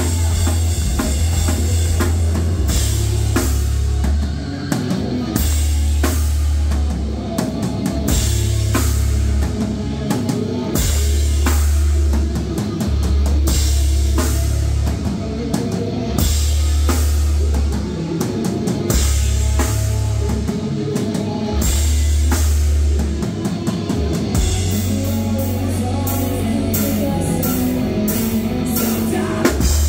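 Live rock band playing loudly: drum kit with bass drum and cymbal hits, distorted electric guitars, and bass guitar notes held for a second or two at a time, with a few short dips in loudness.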